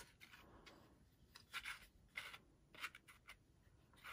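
Faint rustling and light taps of a small piece of cardstock being slid into a handheld plastic craft punch and lined up, a few short scrapes spread through.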